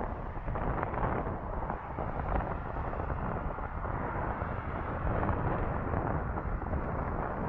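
Boeing 767-300 freighter's twin jet engines rumbling as it passes low over the runway on final approach just before touchdown, a heavy steady roar that swells in the first second.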